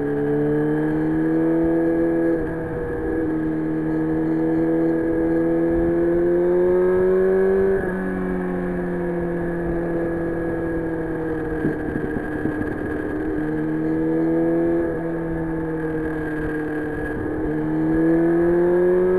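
Yamaha FZR1000 motorcycle's inline-four engine running under way, its note climbing as it accelerates. The pitch drops sharply three times as the throttle closes, with a stretch of slowly falling pitch in the middle as it eases off.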